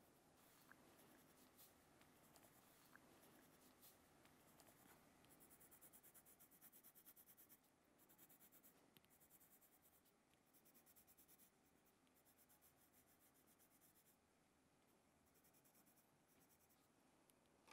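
Faint scratching of a coloured pencil on paper: rapid back-and-forth shading strokes that come in spells of a few seconds with short pauses between.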